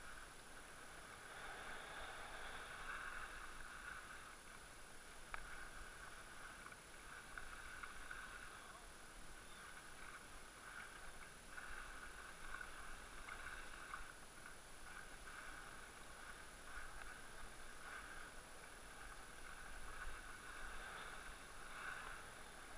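Skis sliding and scraping over firm, tracked snow in a continuous rough hiss that swells and eases with the turns, with a single sharp click about five seconds in.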